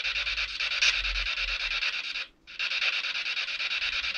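SB7 spirit box sweeping through radio static: a rapidly pulsing hiss with a sharp click just under a second in. The hiss cuts out completely for about a third of a second a little over two seconds in, one of the breaks the investigator wonders may come from interference with the Ghost Tube phone beside it.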